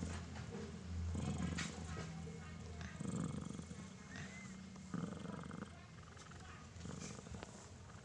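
Persian cat purring while in labour with a kitten half delivered, the purr swelling in louder pulses about every two seconds.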